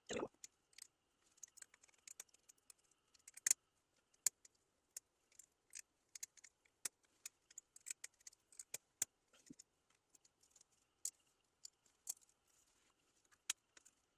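Scattered sharp metallic clicks and taps of a screwdriver, screws and small metal parts as a graphics card is taken apart, with a duller knock right at the start.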